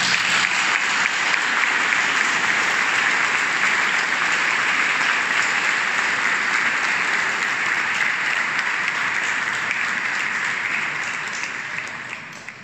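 Large audience applauding, a steady dense clapping that dies away near the end.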